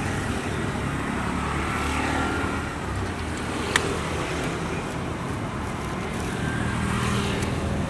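Road traffic, with a motor vehicle engine running steadily close by and one sharp click about halfway through.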